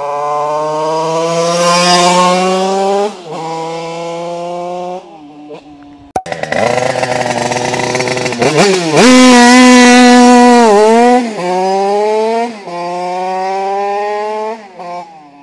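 Rieju MRT 50 supermoto with a two-stroke Minarelli AM6 engine kitted to 88 cc (Stage6) and a twin-outlet exhaust, ridden hard. Its high buzzing engine note climbs in pitch through each gear and drops at every upshift, and is loudest as it pulls away close by about nine seconds in. It is "un bruit de dingue".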